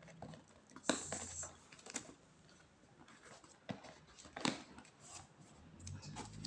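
Cardboard box and its packaging being handled and pried at during unboxing: scattered knocks and scrapes, with a brief rustle about a second in.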